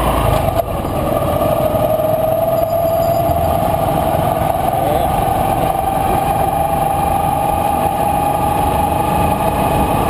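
Motorcycle engine running steadily as it rides along, its whine rising slowly in pitch, over a steady rumble of wind on the microphone.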